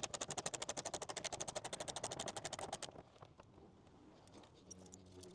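Socket ratchet clicking rapidly and evenly for about three seconds while backing out a factory fender bolt, then a few faint scattered clicks.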